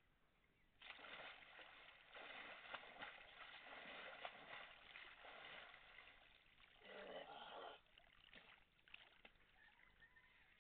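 Canal water splashing and sloshing around a man bathing chest-deep as he ducks and churns the water. The splashing starts about a second in, comes in surges with a last strong surge, and dies down for the final couple of seconds.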